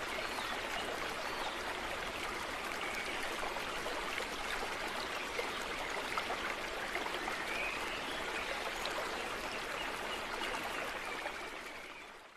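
Steady rushing of flowing water like a stream, with a few faint high chirps, fading out near the end.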